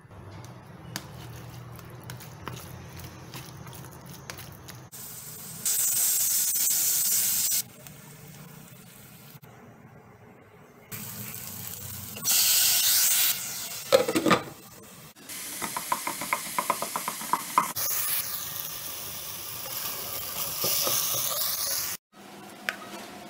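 Cooking in a pan, heard in short cuts: hot oil sizzling in loud bursts that start and stop suddenly as chopped tomatoes are tipped in, then a ladle stirring and scraping a thick tomato sauce that sizzles and bubbles in a wok, with a sharp clatter of utensil on pan.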